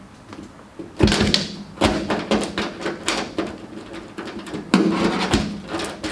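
A run of knocks, clunks and rattles from hand work on a car body as exterior parts are stripped off, starting about a second in, with the hardest knocks about a second in and again near five seconds.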